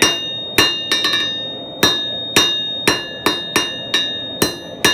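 Hammer blows on red-hot 3/8-inch square steel bar on an anvil, about ten strikes at roughly two a second, each leaving a ringing tone from the anvil. The smith is striking the bar's diagonals to knock the corners down into an octagonal taper before rounding it.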